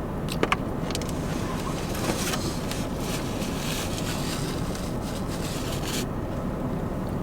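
Steady low background rumble, with two small sharp clicks about half a second in and a faint rustling in the middle.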